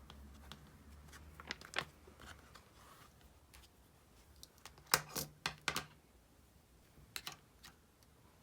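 Paper handling as a diary is opened and its pages are handled: scattered soft taps and rustles, with a brief cluster of louder rustles about five seconds in.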